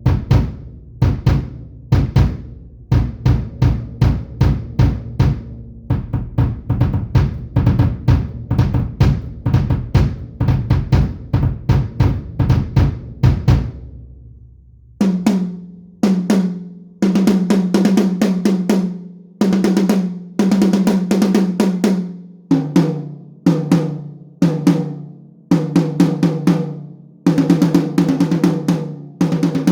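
Sonor HiLite maple-shell kick drum struck over and over, about two beats a second, for roughly the first fourteen seconds. Then toms are struck in runs of strokes, each ringing with a clear pitch, moving to lower-pitched toms near the end.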